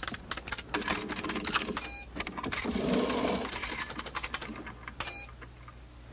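Manual typewriter being typed on fast, the keys clacking in quick runs. The carriage bell rings about two seconds in and again near five seconds, with a longer scraping sound around three seconds in; the typing goes quieter towards the end.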